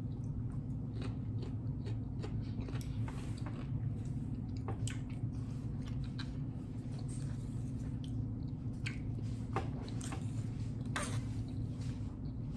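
Close-up chewing of food, with wet mouth clicks and smacks scattered irregularly throughout, over a steady low hum.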